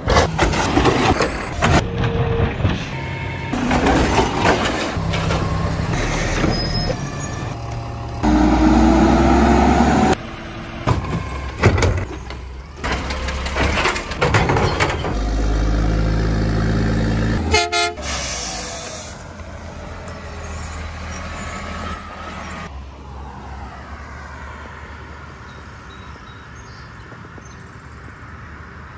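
Garbage truck engines and machinery heard in a quick run of short clips, each cutting off abruptly into the next. For the last several seconds this gives way to a quieter, steady street background.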